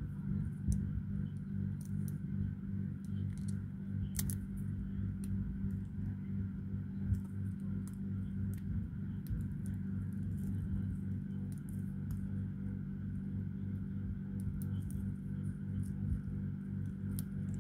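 Strips cut from foil coffee sachets crinkling and clicking as they are folded and slotted together by hand, in scattered sharp ticks, over a steady low hum.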